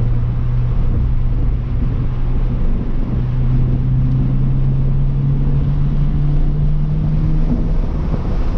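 The flat-four of a 2023 Toyota GR86 with a GR exhaust, heard from inside the cabin, pulling hard under throttle on track. The revs dip briefly about three seconds in, climb steadily for several seconds, then drop off near the end as the driver lifts. Road and wind noise run underneath.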